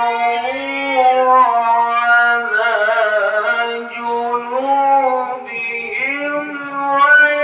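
A male qari chanting the Quran in the melodic tilawah style. A single voice holds long, ornamented notes whose pitch slides and bends, pausing only briefly for breath.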